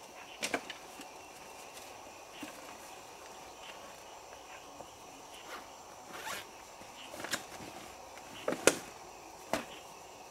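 A person moving about and handling gear: scattered rustles and sharp knocks, the loudest a close pair about three-quarters of the way in, over a faint steady high insect drone.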